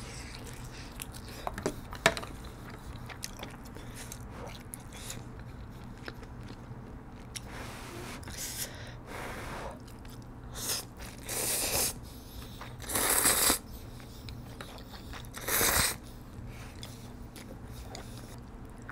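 Close-miked eating of spicy pork bone stew with instant ramyun noodles: wet chewing and small mouth clicks, then four or five loud slurps of noodles in the second half, each lasting about half a second to a second.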